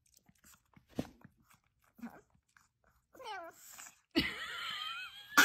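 A pet animal calling: a few faint clicks, then short calls that swoop down and up in pitch, followed about four seconds in by a longer, wavering call, and a sharp knock at the very end.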